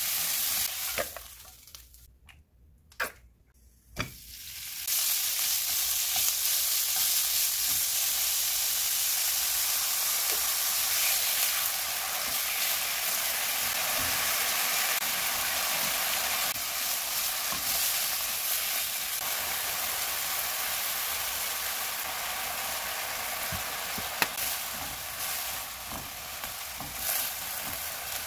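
Stir-frying in a wok: hot oil sizzling steadily under julienned vegetables, then sliced meat and fish cake strips, with chopsticks stirring and tapping against the pan. The sizzle falls away for a couple of seconds shortly after the start, with two sharp taps, then comes back.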